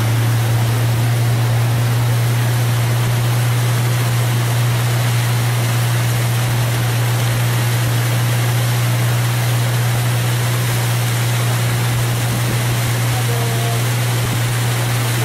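Motorboat engine running steadily under way, a constant low hum under a steady rush of wind and water.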